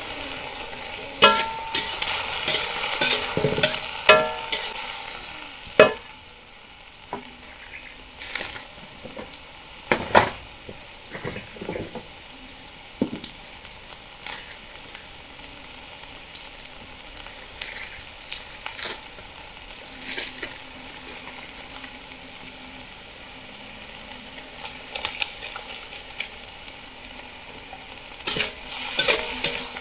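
Banana heart and fried fish cooking in a little water in a pan, sizzling steadily. A utensil clicks and scrapes against the pan through the first six seconds or so and again near the end as the food is stirred.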